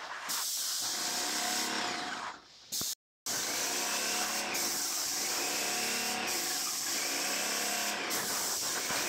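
Graco X5 airless paint sprayer spraying ceiling paint: a steady hiss from the spray tip over the running piston pump, which dips and picks up again regularly, about every one and a half to two seconds. The sound breaks off for a moment about three seconds in.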